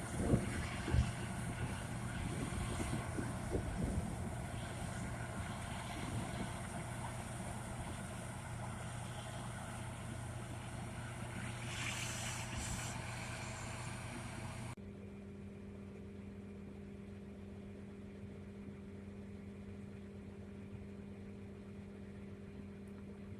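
Tractor engine running steadily, heard from inside the cab, with a couple of sharp knocks near the start. About 15 s in the sound cuts abruptly to a quieter, steady low hum.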